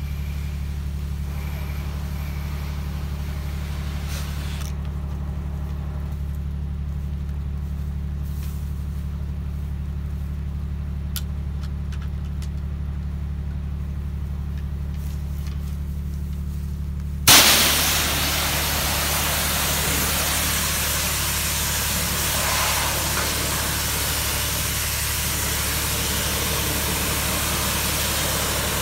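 Pressure washer engine running steadily. A little over halfway through, the spray wand's trigger opens with a sharp burst and a loud, steady hiss of water spray joins the engine hum.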